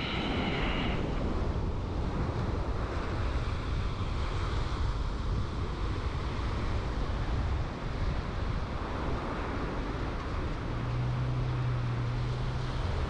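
Surf breaking and washing up the beach, with wind buffeting the microphone in a steady rushing noise.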